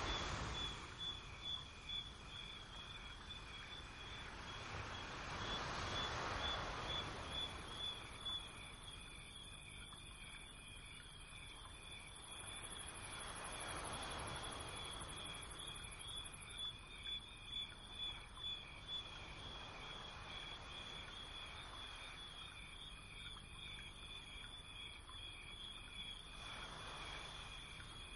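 A steady, high-pitched, evenly pulsing insect trill, like a cricket's chirping, over a low hiss that swells and fades several times.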